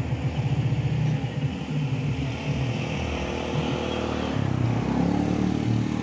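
A motor vehicle's engine running close by, a low rapid throb, its pitch shifting about four seconds in.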